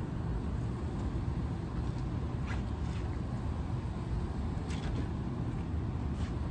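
Steady low outdoor rumble, with three faint short clicks as the loosened condenser coil of a rooftop AC unit is handled and shifted.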